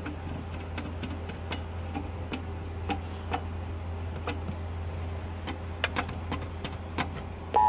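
Recorded radio audio playing back through an Emergency Alert System decoder: a steady low hum with irregular clicks and crackles. Right at the end the loud two-tone EAS attention signal starts abruptly.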